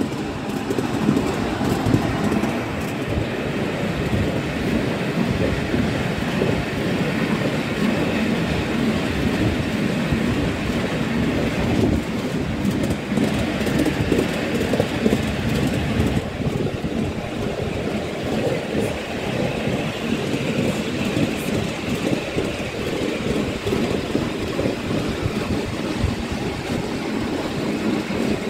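Miniature railway train running along its track, heard from aboard a carriage: a steady rumble of wheels on rail with frequent small knocks and rattles.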